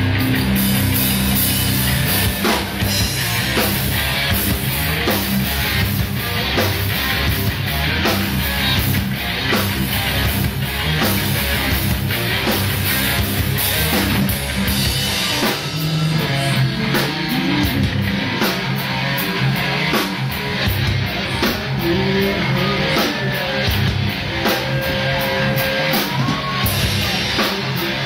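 A live rock band playing loudly, with electric guitar over a drum kit keeping a steady beat.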